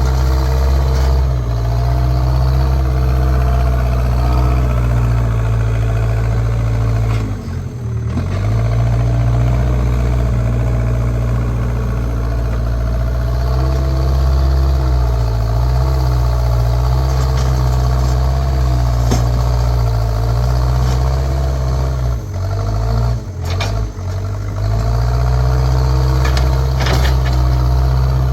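JCB backhoe loader's diesel engine running steadily, dipping briefly about a third of the way in and again about four-fifths of the way through. A few sharp knocks sound over it.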